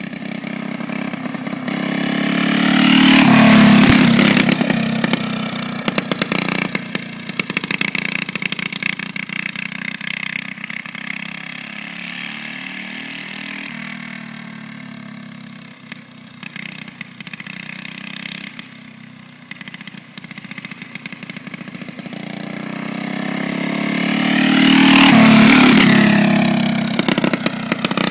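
Go-kart engine passing close by twice, about twenty seconds apart, its pitch dropping as it goes past each time, and droning more faintly in between as the kart goes round the track.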